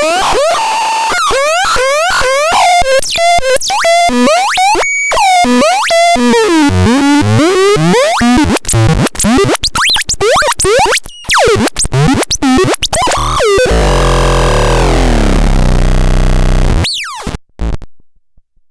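Synthesizer No. 78002 making fast runs of sweeping electronic bleeps and chirps. About fourteen seconds in, these give way to a dense, buzzing noise that slides downward in pitch. It ends with a short upward sweep and cuts off suddenly.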